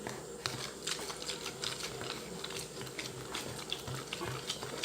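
Spoon clicking and scraping against a container in quick, irregular taps while slime and toothpaste are spread and worked together.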